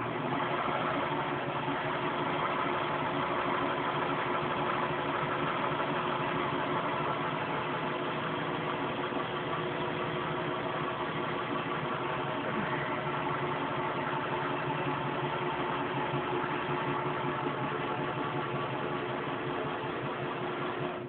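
Electric sewing machine motor running at a steady speed, turning a PVC pipe and fishing rod. It jumps louder right at the start, holds an even hum throughout, and cuts off suddenly at the end.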